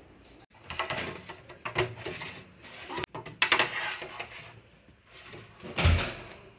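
Stainless-steel trays scraping and clattering as they are handled and slid into the shelf rack of a home freeze dryer, in several short bouts, with a louder dull thump near the end.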